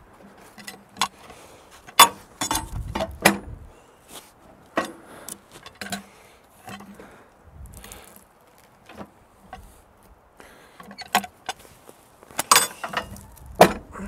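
Irregular metal clanks and knocks of a cant hook biting and levering against a log on a steel sawmill bed as the log is shifted, with a few dull thuds of the log. The sharpest knocks come about two seconds in and near the end.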